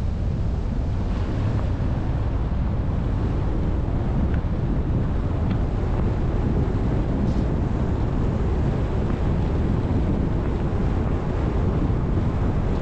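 Steady wind rush over a camera mounted on the outside of a moving car, mixed with the low rumble of tyres and road noise on wet, snowy streets.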